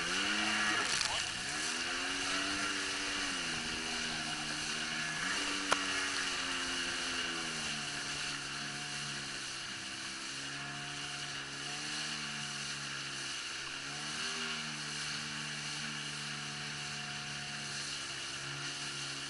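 Jet ski engine running at speed, its pitch rising and falling with the throttle for the first several seconds and then holding steadier, over a steady rush of water. A single sharp click about six seconds in.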